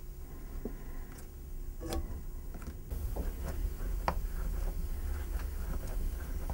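Small clicks and taps of a sculptor's fingers and a small pointed tool working on a painted figure, growing more frequent in the second half, over a low steady room hum.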